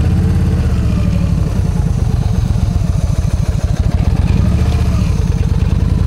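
Yamaha V-Star 1300's V-twin engine running at low revs with a steady pulsing beat while the motorcycle rolls slowly.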